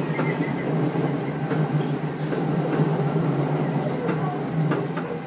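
Inside the leading car of a Tobu 10030 series electric commuter train running between stations: a steady low hum and rumble of wheels on rail, with a few sharp clicks. This car is known for wind whistle and the knock of flat spots on its wheels.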